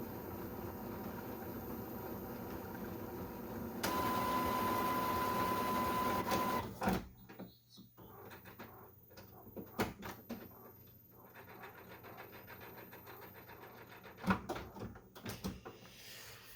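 Epson WF-7720 inkjet printer mechanism running its start-up cycle. A steady mechanical whir gets louder about four seconds in, with a steady whine over it, and stops abruptly about seven seconds in. Scattered clicks and clunks of the mechanism follow.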